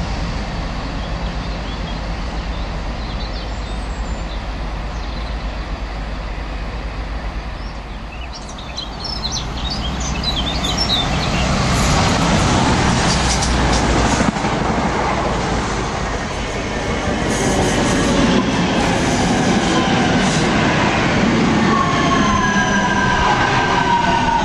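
Trains passing through a station, one after another. First a Class 158 diesel multiple unit gives a low engine drone. About eight seconds in, a CrossCountry Voyager diesel unit builds up and runs through at speed, loudest around twelve seconds in. Then a London Midland electric multiple unit passes close by, with thin whining tones falling in pitch near the end.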